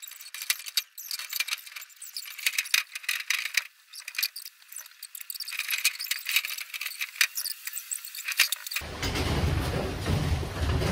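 Light metallic clinks and rattles of the bike box's sheet-metal lid panel as it is lifted and manoeuvred into place. About nine seconds in, the sound changes abruptly to a steady low rumbling noise.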